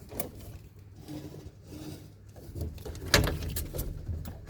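Handling noises of a new washing-machine drain hose and its spring clip being fitted: scattered light clicks, knocks and rubbing, with a louder knock about three seconds in.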